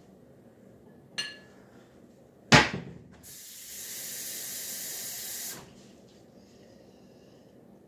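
A short ringing clink and then a sharp knock at the kitchen sink, followed by the faucet running for about two and a half seconds before it is shut off abruptly.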